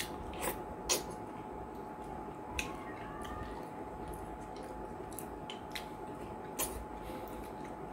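Eating by hand: fingers squelching through slimy okra soup and banku, with wet mouth clicks from chewing, a handful of short sharp clicks over a faint steady hum.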